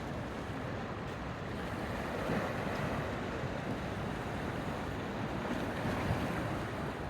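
Sea waves washing onto a beach, a steady rushing noise that swells a little and falls back, with wind rumbling on the microphone.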